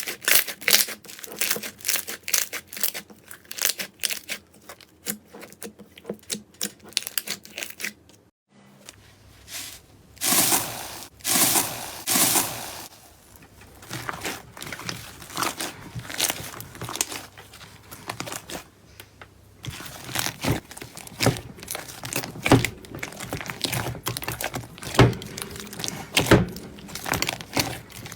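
Hands squeezing and stretching slime, making dense crackling, clicking and popping sounds. The clip changes about eight seconds in, and soon after there are a few longer squelching, tearing stretches.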